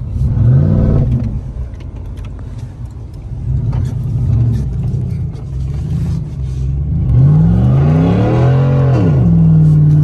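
Ram pickup truck's engine revving in several surges while the truck pushes through deep snow. The longest rev climbs and falls about eight seconds in and is then held steady, as the truck gets stuck.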